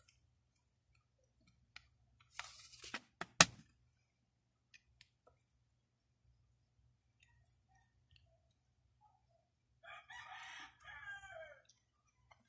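A plastic CD jewel case and its paper booklet being handled: a short rustle and a sharp plastic snap about three seconds in, the loudest sound. Near the end, a drawn-out animal call of nearly two seconds that falls in pitch as it ends.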